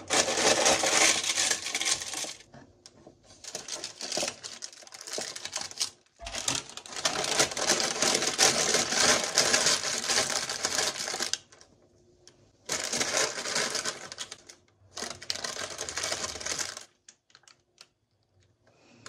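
Baking paper crinkling and rustling as it is pressed into a plastic container and pastries are packed in. It comes in several bursts of a few seconds each, with short pauses between them.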